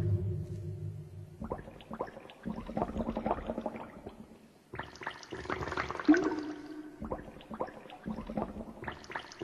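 Electroacoustic soundscape of water sounds: gurgling, pouring textures dotted with small clicks. It comes in two stretches with a brief drop near the middle, and a held tone slides up about six seconds in.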